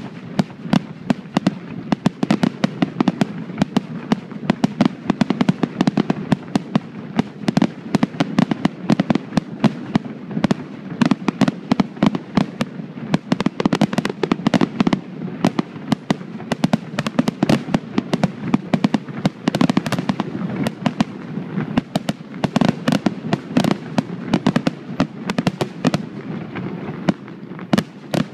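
Aerial fireworks bursting in a rapid, unbroken barrage: sharp bangs and crackles come several a second over a continuous low rumble.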